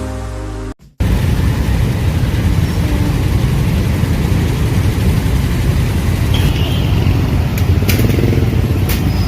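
A short tail of intro music cuts off about a second in, followed by steady street traffic noise from passing motorbikes and cars, heavy in the low end, with a few sharp clicks near the end.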